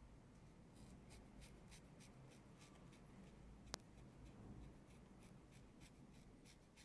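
Faint scratchy strokes of a dermaplaning blade scraping across facial skin and fine hair, about four a second, with a single sharp click a little past halfway.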